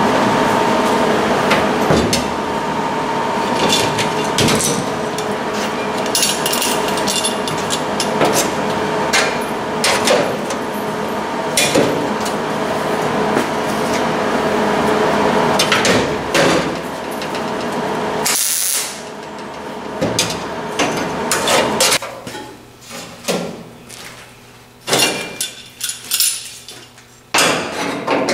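Metalworking on a pickup truck's steel cab: frequent metallic knocks and clanks over a steady mechanical noise, which cuts off suddenly past the middle. Near the end, separate knocks and taps on the sheet metal stand out against a quieter background.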